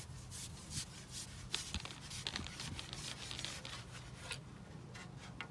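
Fishing pole being shipped back, its sections sliding and rubbing over the seat box and the angler's leg: a run of scraping rubs and light clicks, with a few more clicks near the end.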